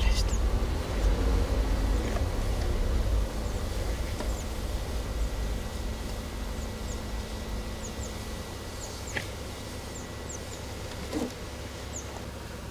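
Low rumble of the car's engine and tyres heard from inside the cabin, fading steadily as the car eases along. Scattered short, high, falling chirps come from outside, with a couple of brief clicks about nine and eleven seconds in.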